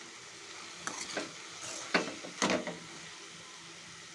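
Amaranth leaves stir-frying in a metal kadai: a utensil scraping the pan in four or so quick strokes in the first few seconds, over a faint steady sizzle, as chili powder and turmeric are mixed in.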